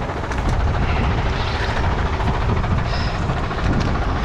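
Heavy diesel truck engine running at idle, a steady low rumble.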